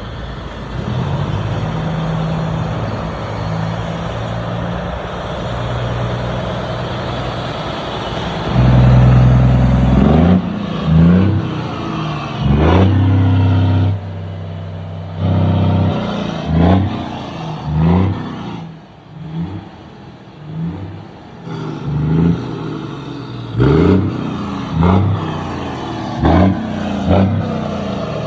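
A vehicle engine running steadily, then revved repeatedly in short bursts that each rise in pitch.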